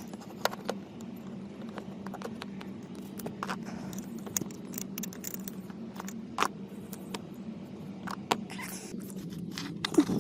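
Scattered light clicks and taps of hand tools and small parts being handled while a clutch pedal switch is worked on, over a steady low hum.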